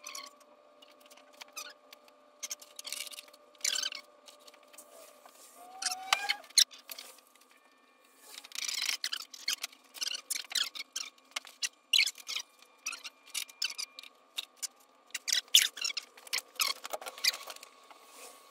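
Irregular sharp clicks, taps and scrapes of small hard objects being handled, in clusters, over a faint steady tone.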